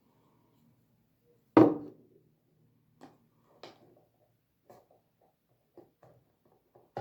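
Hands working with paper and glue on a tabletop: small taps and clicks spaced a second or so apart, with one louder knock about one and a half seconds in.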